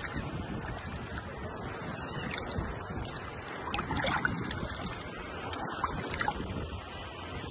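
Steady outdoor ambience of rushing wind and water noise, with a few brief higher calls or squeaks about a third of the way in, near the middle and again later.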